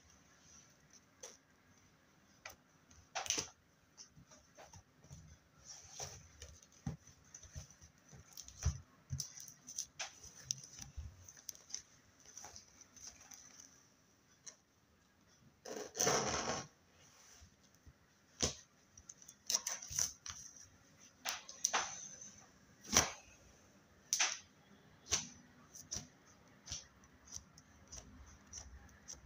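Slime being squished and played with: irregular sticky clicks and pops, with one longer crackling squelch about sixteen seconds in.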